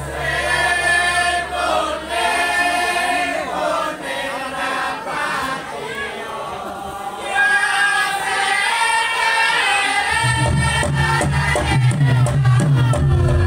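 Javanese Lengger vocalists singing a long, wavering melodic line with held notes. About ten seconds in, drums and percussion strikes of the gamelan accompaniment come in.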